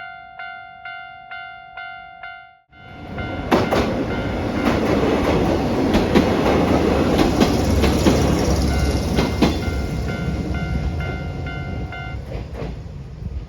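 Japanese level crossing's electronic warning bell ringing about twice a second, then a Mizuma Railway electric train passing close by, its wheels clicking over the rail joints. The bell can still be heard under the train noise and stops about 12 seconds in, as the train moves away.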